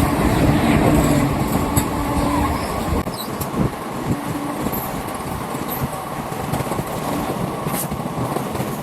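Passenger express train running along the track, heard from on board as a steady rumble and rail noise. A faint steady hum fades out after the first two or three seconds, and the low rumble thins out about three seconds in.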